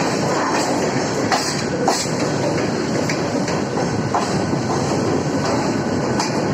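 Mumbai suburban local (EMU) train running, heard from inside the coach: a steady rumble with irregular clacks as the wheels pass over rail joints.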